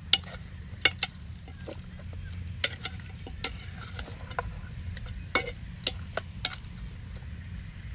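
Food sizzling in a pan as it is stirred, with irregular sharp clicks and knocks of a utensil against the pan over a low steady rumble.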